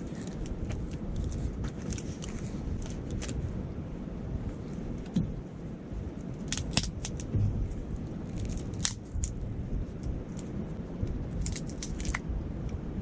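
Campfire crackling, with sharp pops and snaps scattered through and small bunches of them about halfway and near the end, over a steady low rush of wind and a murmuring stream.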